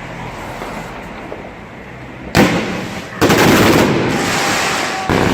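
Fireworks going off: low background noise, then a loud bang about two seconds in, a second one a moment later that runs on as a long, dense rush of noise, and another sudden bang near the end.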